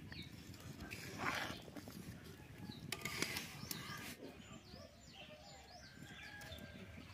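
Small birds chirping in the background, with a few scrapes and knocks of a metal spatula and ladle against a steel kadai of curry.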